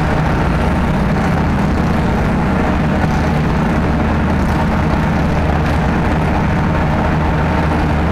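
Sherp ATV's diesel engine running steadily as the vehicle drives, heard from inside the cab as a loud, constant drone.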